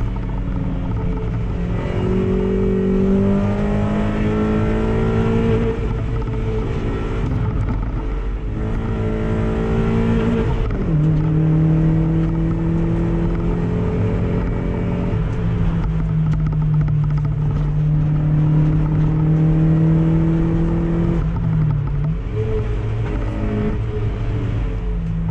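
Car engine under load, heard from on board while lapping a circuit. Its note holds fairly steady or climbs slowly, with a few sudden drops in pitch at gear changes, over steady road and wind noise.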